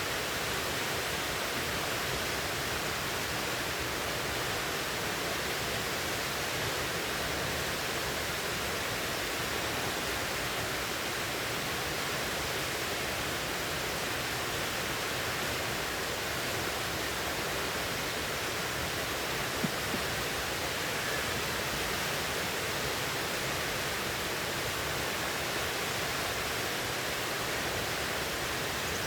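River water rushing steadily, an even, unbroken wash of sound.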